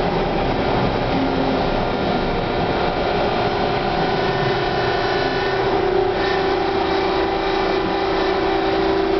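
Hawker-Siddeley H5 subway car running on the rails, heard from inside the car: a steady rumble and hiss, with a humming tone that grows stronger through the second half as the train comes into a station.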